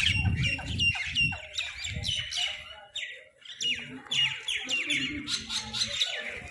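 A flock of crows calling over each other while squabbling for food: short, downward-sliding calls come several a second, with a few low thuds in the first second.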